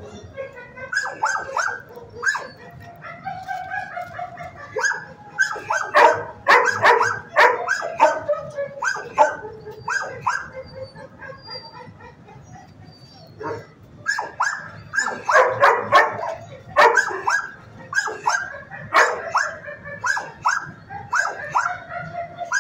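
Dogs in shelter kennels barking: many short, rapid barks in bursts, loudest in clusters with a brief lull about halfway through.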